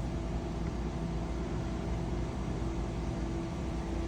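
A steady low hum with an even hiss over it, and no speech.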